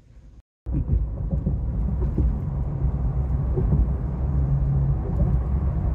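Steady low rumble of tyre and engine noise inside a pickup truck's cab at highway speed, starting after a brief cut to silence about half a second in.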